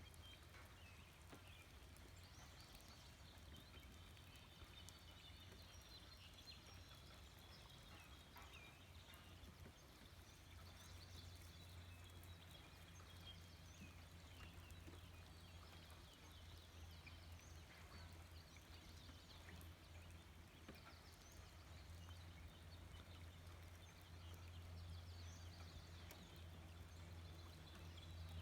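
Faint birds chirping and calling in many short, overlapping notes, over a steady low hum.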